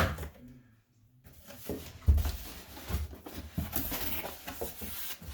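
A cardboard gift box and its packing being opened and handled: rustling and scraping with a few light knocks, starting about two seconds in.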